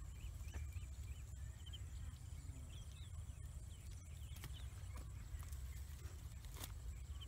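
A pointed stick jabbing into hard, dry soil, with a couple of dull knocks, over a steady low rumble. Faint, short high chirps of birds come and go throughout.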